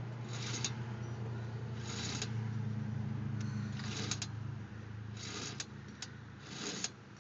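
Front wheel hub and brake assembly of a car, wheel removed, turning and giving a short scrape about every second and a half, several ending in a sharp click, over a low steady hum. The owner first took it for the brakes, but the pads are not worn to metal and he places the noise behind the rotor.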